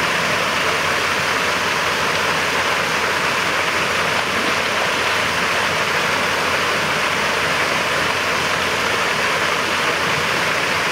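Steady rush of running water, even and unchanging.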